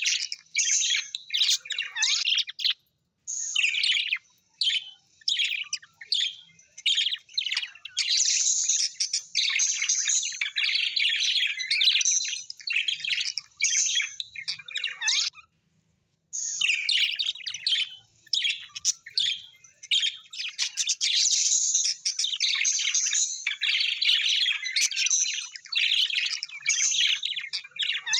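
Birds chirping and chattering in dense, high-pitched runs. The sound cuts out completely twice, about three seconds in and again just past the middle.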